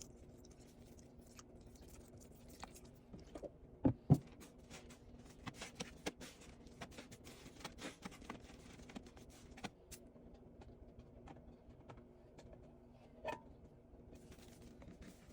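Soapy sponge being squeezed and handled, with many small crackles and clicks and two louder knocks about four seconds in, over a faint steady hum.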